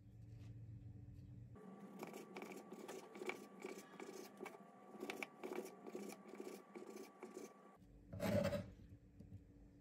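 Kitchen knife cutting a slice of bread on a wooden cutting board, a steady run of quick chopping strokes, about three a second, each crunching through the bread and tapping the board. Near the end there is one brief, louder swish.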